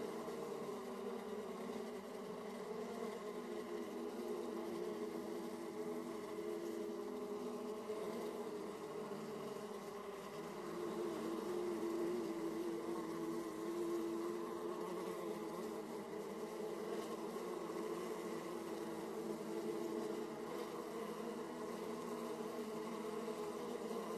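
Many honeybees buzzing at a beehive entrance: a steady, dense hum of wingbeats that swells slightly about halfway through.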